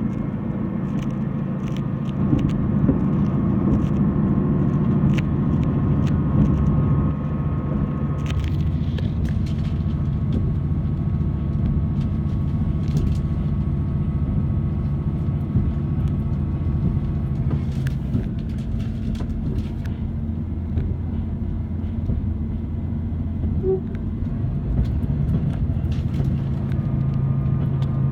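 Diesel railcar running, heard from inside: a steady low engine drone with level tones that shift about 8 seconds in and again near 18 seconds, and scattered short clicks.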